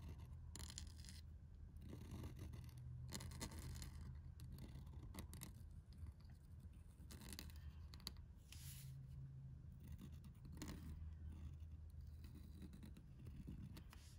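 Pointed steel calligraphy nib in an oblique holder scratching faintly across paper in a series of short pen strokes as letters are written, over a steady low room hum.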